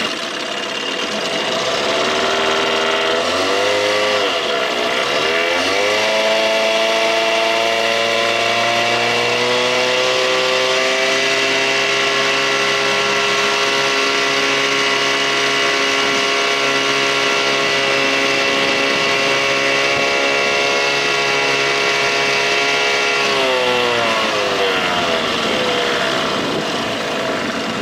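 1987 Johnson 6 hp two-stroke outboard motor pushing the boat at speed on a test run after a carburettor swap to cure bogging. Its revs climb over the first few seconds with a brief dip about four seconds in, hold steady at full throttle for most of the time, then fall away near the end as it is throttled back.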